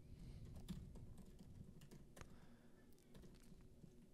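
Computer keyboard typing: faint, separate keystrokes coming at an uneven pace.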